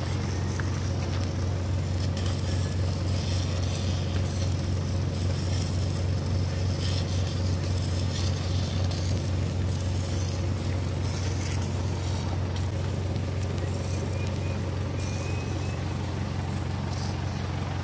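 Boom truck's engine idling with a steady low drone, and the faint irregular crackle of arc welding on a steel post above it.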